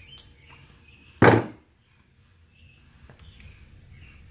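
A single loud thunk about a second in, dying away within half a second: metal pliers set down on a wooden workbench. A couple of faint clicks come before it.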